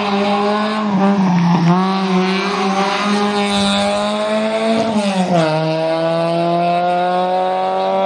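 Racing car engine at full throttle, pulling through the gears: its pitch climbs steadily and drops sharply at an upshift about five seconds in, then climbs again.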